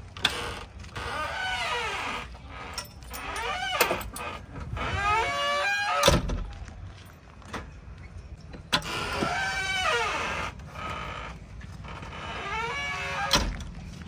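JCB 3DX backhoe loader's cab door squeaking on its hinges as it is swung open and shut several times, with a sharp latch knock about six seconds in and another near the end.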